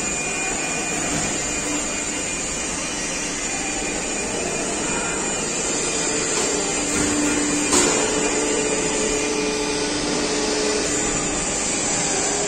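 Very large hydraulic CNC press brake running: a steady mechanical hiss and hum from its hydraulic drive, with faint whine tones coming and going in the middle and one sharp knock about eight seconds in.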